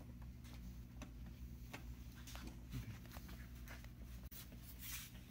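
Faint scattered clicks and light taps from hands working wiring and connectors, over a steady low hum.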